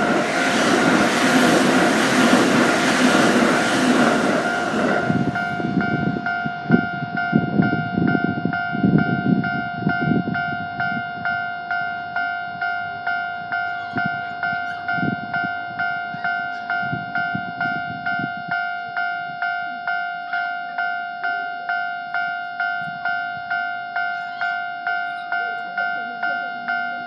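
Japanese level-crossing warning bell ringing steadily, about one and a half strokes a second, while a train passes. The train's noise fills the first few seconds, then the thumps of its wheels fade away over the next several seconds, leaving the bell ringing on its own.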